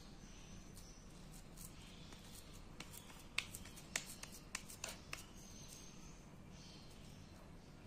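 Quiet handling of soft semolina dough: hands rolling and pressing a piece into a flat round over a glass bowl, with a quick run of light clicks and taps about halfway through.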